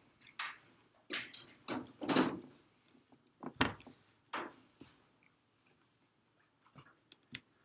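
Irregular clicks, knocks and short rustles from handling at the lecture desk as the laptop is worked. One sharp click comes about three and a half seconds in, and it grows quieter in the last few seconds.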